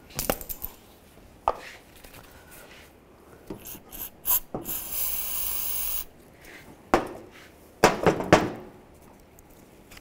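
An aerosol can of brake parts cleaner sprays in one steady hiss of about a second into the slider-pin bore of a rusted brake caliper bracket, flushing out the rust. Around it come scattered metallic clicks and knocks as the bracket and tools are handled, the loudest a few sharp knocks near the end.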